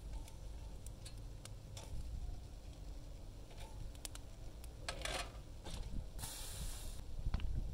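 Light clicks and taps of metal tongs lifting roasted red pepper pieces off a charcoal grill grate onto a steel tray, over a low background of scattered charcoal crackles. A brief hiss sounds about six seconds in.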